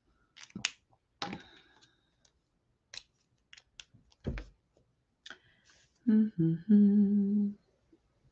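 Light clicks and taps of pens being handled on a desk, then a woman humming near the end: two short notes and one longer held note.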